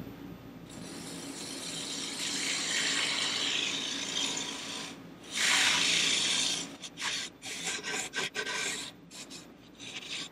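A bowl gouge cutting green, wet maple spinning on a lathe, a steady hissing, shearing cut that throws off long wet shavings. It swells louder about halfway through, then breaks into short, choppy cuts with gaps near the end.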